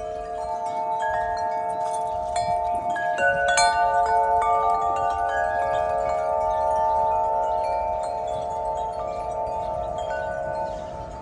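Wind chimes ringing in the wind: tone after tone struck and left ringing on, overlapping into a steady wash of chime notes. The sound is loudest about four seconds in and eases off near the end.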